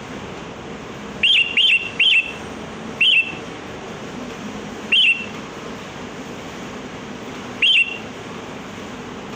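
Sooty-headed bulbul calling: short, sharp, high notes, three in quick succession about a second in, then single calls about three, five and nearly eight seconds in, over a steady hiss.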